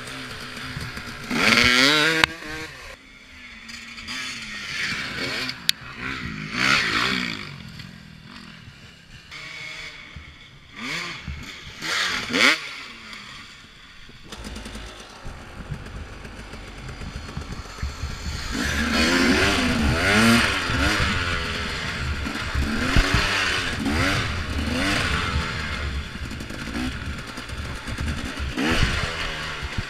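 Two-stroke dirt bike engines revving in separate short bursts that rise and fall, then, from a little past halfway, a 2014 KTM XC-W 250 two-stroke running continuously under riding, its revs climbing and dropping over and over with the throttle.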